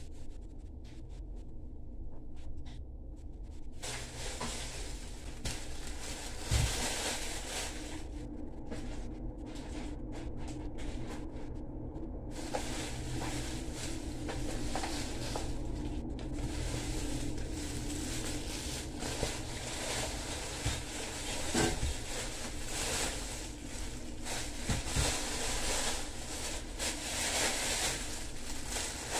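Plastic grocery bags crinkling and rustling as they are pulled out of a cloth shopping bag and handled, with small clicks and crackles, starting a few seconds in. A steady low hum runs underneath.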